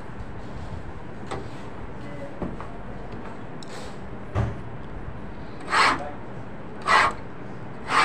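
Hand knife being stroked on a small hand-held sharpening block: short strokes that start about four seconds in and repeat roughly once a second.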